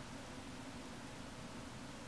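Faint steady hiss with a low hum: room tone, with no distinct sounds.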